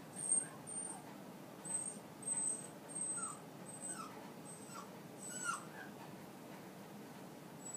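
A dog whimpering: a string of short, high-pitched squeaks and whines about every half second to a second, several of them falling in pitch.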